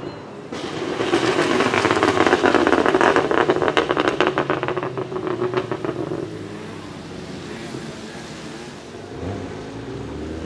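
Tuned BMW 1M's twin-turbo straight-six with its exhaust crackling and popping in a rapid, machine-gun-like string of backfires for several seconds. It then settles to a quieter steady engine drone.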